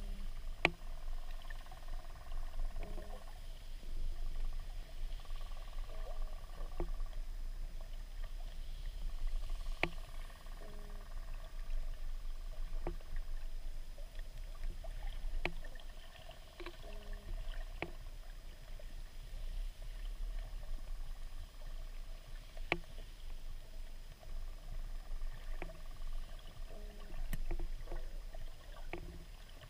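Underwater ambience picked up by a GoPro inside its waterproof housing: a steady, muffled low rumble, with about a dozen sharp clicks and short low knocks scattered at irregular intervals.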